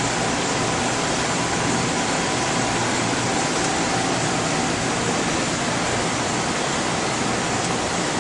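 Steady background noise of equipment fans and ventilation, an even hiss with a faint steady hum of a couple of tones underneath that does not change.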